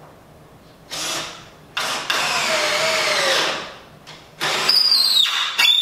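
Power drill driving screws into the maple back slats of an Adirondack chair, in about four bursts, the longest about a second and a half; the motor's pitch sags as the screw bites into the wood.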